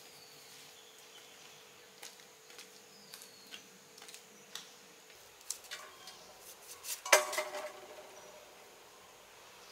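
Light clicks and knocks, then a loud clatter about seven seconds in as a stainless steel bowl is knocked and rings briefly. A bird chirps faintly early on.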